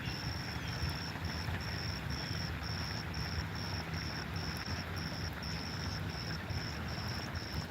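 An insect chirping as a high, even pulse about twice a second, over a steady rushing background noise.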